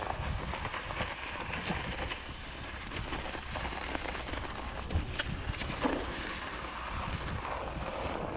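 Mountain bike rolling over snow: tyres crackling and crunching in the snow, with a few sharp clicks from the bike, and wind rumbling on the microphone.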